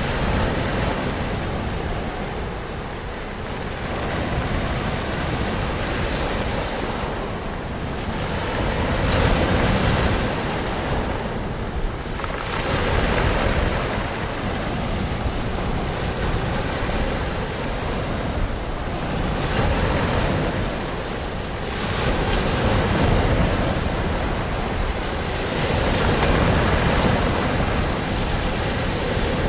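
Ocean waves breaking and washing in, a constant rush of surf that swells every four or five seconds.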